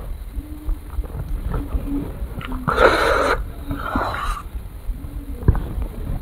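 Close-up eating sounds of soft ice cream: wet mouth sounds and a metal spoon scraping a small ice cream cup, with two short breathy bursts about three and four seconds in.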